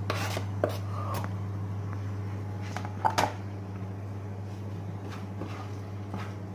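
Light knocks and scrapes of a plastic cutting board against a frying pan as food is pushed off it, with a sharper pair of knocks about three seconds in. A steady low hum runs underneath.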